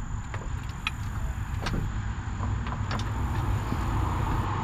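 Scattered light metallic clicks and clinks of bolts and hand tools being handled while temporary bolts are fitted, over a steady low rumble.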